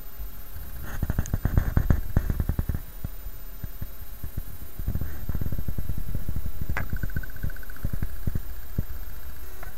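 Ragdoll cat purring close to the microphone: a low, fast rumbling pulse in two stretches with a pause of about two seconds between them, and a sharp click partway through the second.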